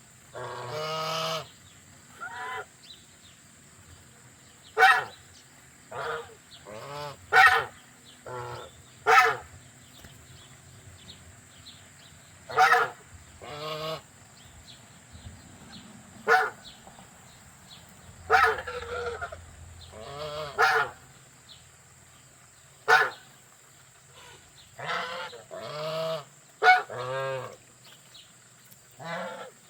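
Domestic geese honking: an irregular series of calls, some short and sharp, others longer and drawn-out.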